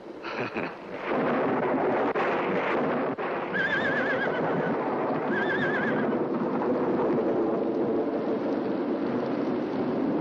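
Horses whinnying: two wavering neighs, about four and about five and a half seconds in, over a steady rushing noise.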